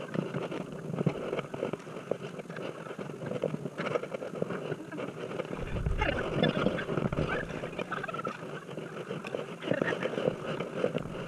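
Kayak paddle strokes splashing and dripping as a sit-on-top kayak is paddled through shallow sea water, with a low buffeting rumble about six seconds in.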